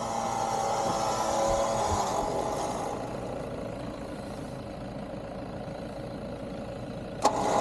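An off-road vehicle's engine runs during a winch recovery, strongest for the first two seconds or so and then easing to a lower, steadier level. A sharp click comes near the end.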